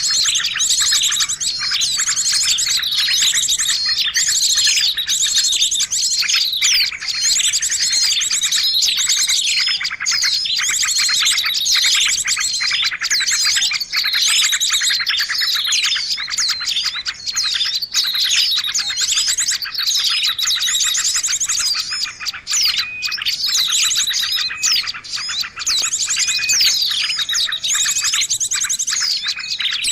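Songbird song without a break: dense, rapid trills and high chirps overlapping one another. It is a masteran tutor recording, the kind played to cage birds to teach them new song phrases.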